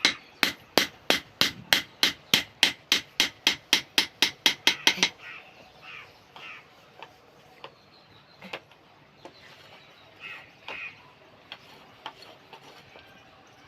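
Hammer strikes on the metal blade of a crop-cutting tool under repair: a quick even run of about eighteen blows, three to four a second and speeding up slightly, that stops about five seconds in. A few single light taps follow.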